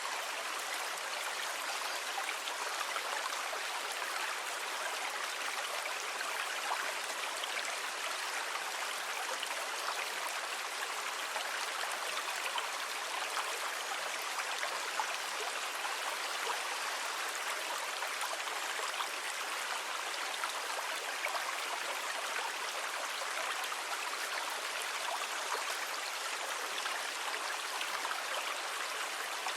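Sea water making an even, steady rush, with no distinct wave swells or breaks rising and falling.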